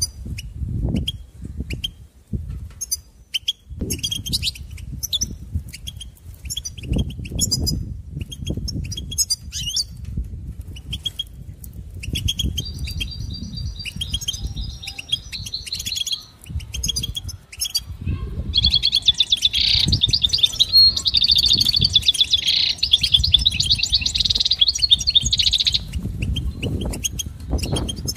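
European goldfinch singing. It gives scattered short chirps at first, then runs into a fast twittering song that becomes loud and continuous for several seconds in the second half. A low rumble comes and goes underneath.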